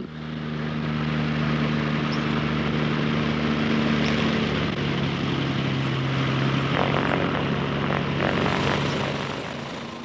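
Airboat's engine and caged air propeller running steadily at speed, a loud droning hum; the pitch drops slightly about halfway through.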